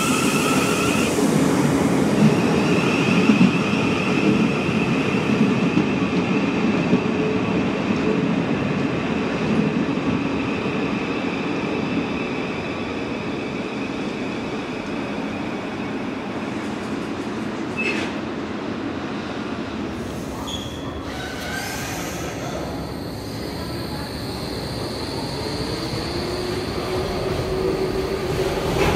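Electric trains running through a station. A Southeastern Class 707 electric multiple unit passes close by with loud running noise and a high steady whine over the first several seconds. The noise then settles to quieter train running, with a DLR train's motor whine near the end.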